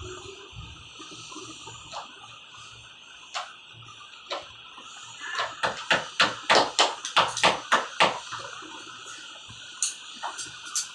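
A quick run of about a dozen sharp knocks from hand-tool work on a sofa, roughly four a second, starting about halfway through. A few single knocks come before and after it, over a steady hiss.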